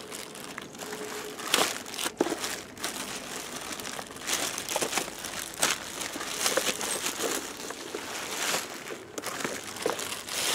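Clear plastic packaging bag crinkling as it is pulled and worked off a pressure washer, with irregular sharp crackles throughout.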